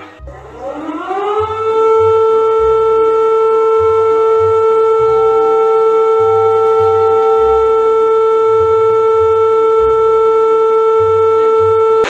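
Emergency alert siren winding up in pitch over about a second and a half, then holding one steady loud tone until it cuts off abruptly at the end.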